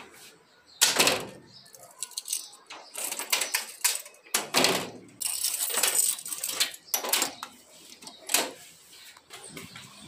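A bunch of keys jangling and knocking against an aluminium gate as it is shut and locked: several sharp metallic knocks, the loudest about a second in, with a rattling scrape around the middle.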